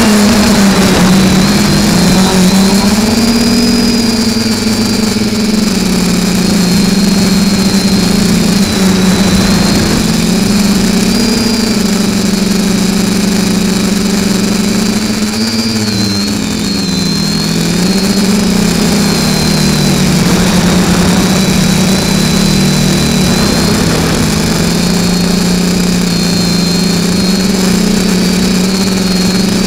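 Alien V2 FPV quadcopter's brushless motors and propellers buzzing loud and close, picked up by the camera on board, the pitch wavering up and down with the throttle. About halfway through the pitch drops briefly and comes back up.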